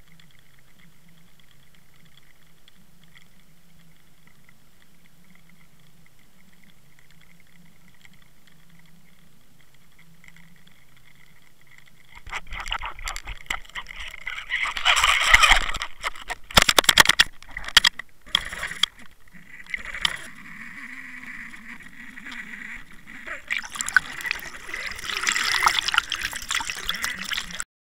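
Water sloshing and gurgling over an underwater camera housing towed on a trolling line. For the first twelve seconds there is only a faint steady hum with thin high tones, the trolling boat's motor heard through the water. Then loud, irregular rushing and sloshing sets in, with sharp knocks around the middle and another loud stretch near the end.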